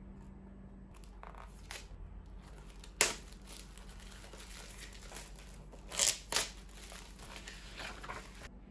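Crinkling and rustling handling noise, with a sharp crackle about three seconds in and two more around six seconds in.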